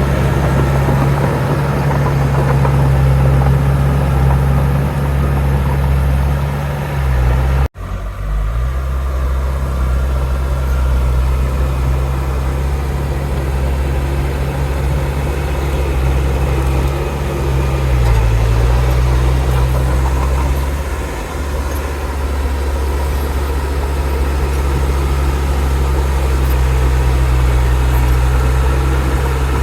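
Heavy diesel engine of earthmoving machinery running steadily at a low, even pitch, with small changes in load. The sound cuts out for an instant about eight seconds in.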